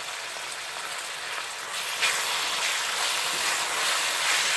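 Browned onions, ginger-garlic paste and green chillies sizzling in hot oil in a steel kadai. About two seconds in, the sizzle grows louder and rougher as a wooden spatula starts stirring them.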